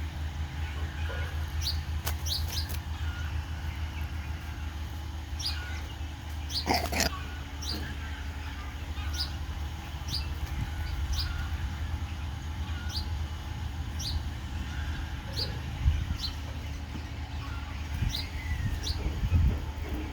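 A small bird giving short, high, downward-slurred call notes, repeated about once a second, over a steady low hum. One louder sound stands out about seven seconds in.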